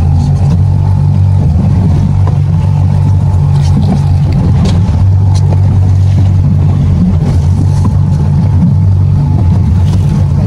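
Boat's outboard motor running steadily at trolling speed, a low even drone.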